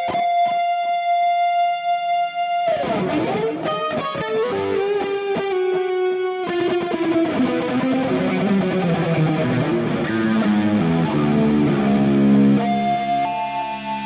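Electric guitar freshly strung with Elixir Optiweb 9–46 strings, played solo: a note held for nearly three seconds, then quick runs of notes falling in pitch, and lower melodic phrases that end on held notes about two seconds from the end.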